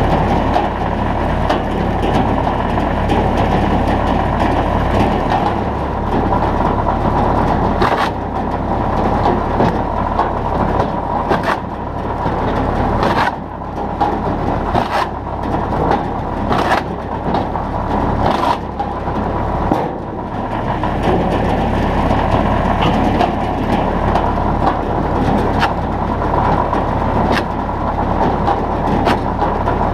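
Tractor engine running steadily to drive an almost 30-year-old Klapi-Tuiko guillotine firewood processor, its blade chopping and splitting birch poles with a series of sharp cracks, most of them between about 8 and 19 seconds in.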